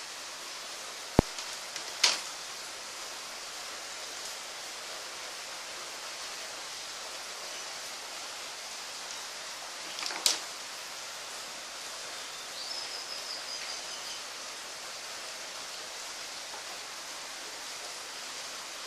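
Steady background hiss with a few small handling noises: a sharp click about a second in, another click a second later, a clack near the middle as a small tin is handled and its cap set on a wooden table, and light rustling a few seconds after.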